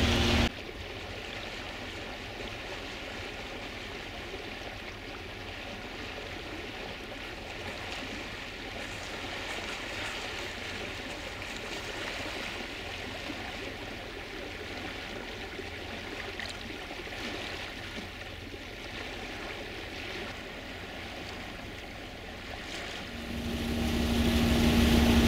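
Steady wash of swirling tidal current water. Near the end a boat engine's steady hum comes in and grows louder.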